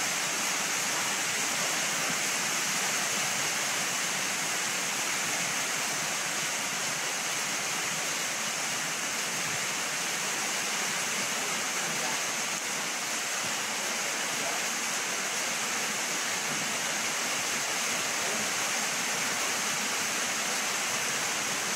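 Steady rain falling, an even, unbroken rush of noise.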